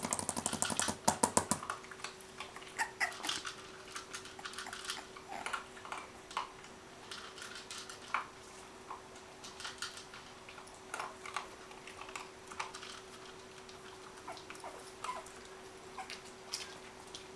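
Cavalier King Charles Spaniel puppies at play: a loud, rapid burst of puppy sounds in the first second and a half, then scattered small clicks and faint short squeaks, over a faint steady hum.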